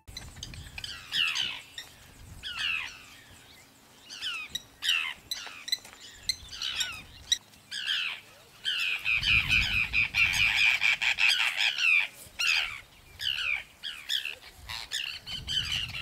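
Forster's terns calling: short, harsh, downward-slurred calls repeated in irregular runs, merging into a dense stretch of overlapping calls about midway, with a low rumble underneath there.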